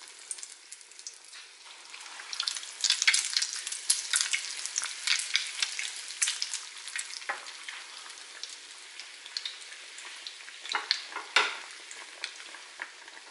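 Egg-coated slices of milk-soaked bread deep-frying in hot oil in a small saucepan: a steady sizzle with constant crackling pops. It gets busier a couple of seconds in, and a few louder pops come later.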